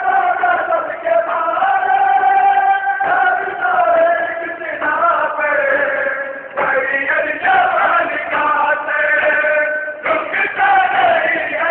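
A group of men chanting a noha, a Shia lament, in unison: long held sung lines in phrases of a few seconds, with the crowd's voices joining in.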